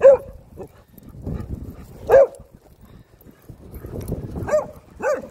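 A small dog barking: four short barks, the first right at the start, one about two seconds in, and the last two close together near the end.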